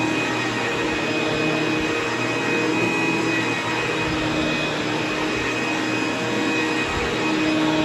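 ProTeam upright vacuum cleaner running steadily as it is pushed back and forth over carpet.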